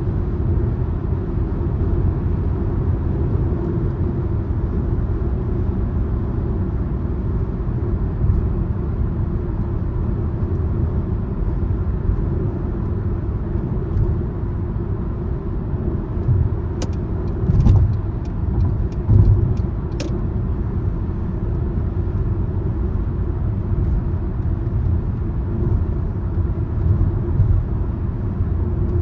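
Car driving along a road: a steady low rumble of tyres and engine. About two-thirds of the way through come a short run of sharp clicks and a couple of heavier bumps.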